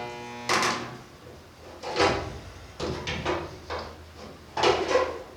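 A resistance spot welder gives a short electrical buzz as it fires a weld at the start. Then come several separate metal clunks and scrapes as the heavy welder and clamps are handled and moved along the sheet-metal seam, over a steady low hum.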